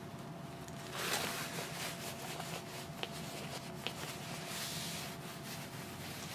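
Faint rustling of clothing and a phone being handled, with a louder rustle about a second in and two light clicks about three and four seconds in.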